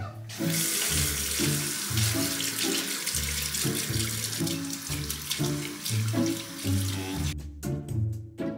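Bathroom sink mixer tap running, water pouring into the basin in a steady rush that stops abruptly about seven seconds in. Background music with a rhythmic bass line plays throughout.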